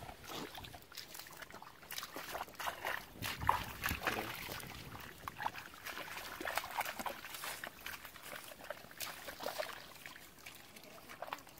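Hands sloshing and squelching through shallow muddy water while groping in the mud for fish, with irregular splashes and slaps.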